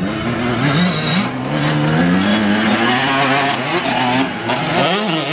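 Motocross bikes revving on a dirt track, the engine pitch climbing and dropping again and again, with one quick sharp rise and fall near the end.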